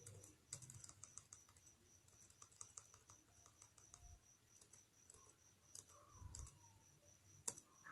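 Faint typing on a computer keyboard: irregular light key clicks throughout.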